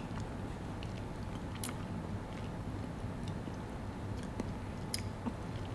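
Close-up chewing of a bite of chocolate bar with crunchy kunafa filling: soft mouth sounds and scattered faint crisp clicks, two sharper ones about a second and a half in and near the end, over a low steady hum.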